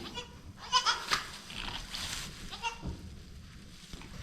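Newborn goat kids bleating: several short, high-pitched bleats, most of them in the first second and another a little before the end.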